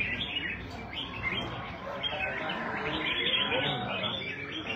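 Red-whiskered bulbuls singing and chirping, several phrases overlapping with no break.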